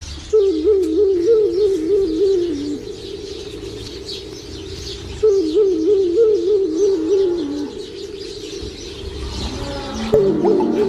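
A bird giving a low, wavering call about two and a half seconds long that drops in pitch at the end, repeated three times, with faint high chirping of other birds behind it.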